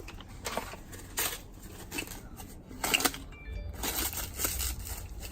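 Plastic packaging and kit parts rustling and crinkling in irregular bursts as an ignition-control kit and its wiring harness are unpacked by hand.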